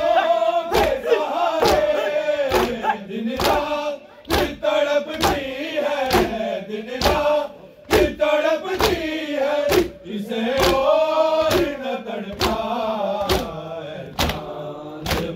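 Matam: a crowd of men beating their chests with open hands in unison, sharp slaps a little over one a second, while they chant a mourning lament (noha) together.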